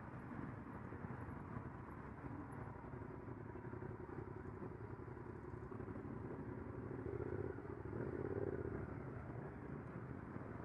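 Motorcycle engines of a slow-moving group ride, heard from a bike-mounted camera: a steady, muffled engine drone. About seven seconds in, one engine grows louder and climbs a little in pitch, then eases off.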